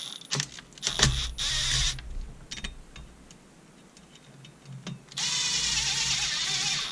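Cordless impact driver running down the exhaust bolts that clamp a block-off plate over a chainsaw cylinder's exhaust port. It runs in two bursts, a short one about a second in and a steadier, longer one near the end, with a few sharp clicks of tool on metal between them.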